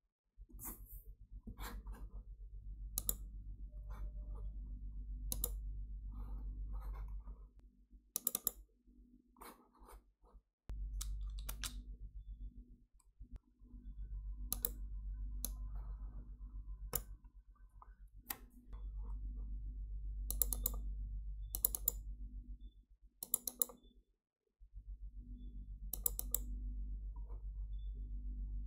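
Computer mouse clicking, about twenty single clicks spread out with pauses between them, over a steady low hum that cuts out for a few seconds now and then.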